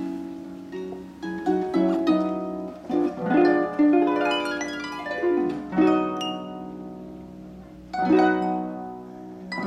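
Pedal harp played solo: plucked chords and arpeggios that ring on and fade, with a quick flurry of notes in the middle and fresh chords struck about six and eight seconds in.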